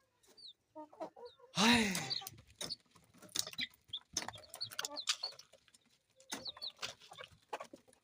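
Chickens clucking: one loud, drawn-out call about a second and a half in, then many short clucks and high chirps.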